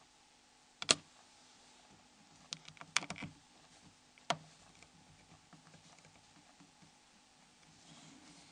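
Plastic snap clips of a Nokia N73 phone's cover clicking as a prying tool is slid along the edges to release them: one click about a second in, a quick run of clicks around three seconds, one more a little after four seconds, then only faint ticks.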